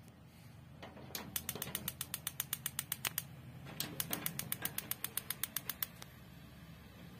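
Rinnai gas stove's spark igniter clicking rapidly, about eight to ten clicks a second, in two runs of about two seconds each as the two burners are lit one after the other.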